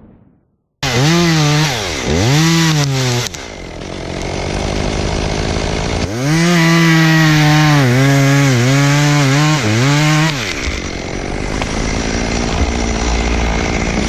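A two-stroke chainsaw starts suddenly about a second in and is revved up and down several times. It is then held at high revs for about four seconds with repeated brief dips in pitch, then drops back to a lower, steadier running sound.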